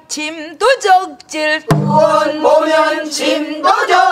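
Several men and women singing a pansori line back in unison, with wavering, bending pitch. A single stroke on a buk barrel drum lands about two seconds in.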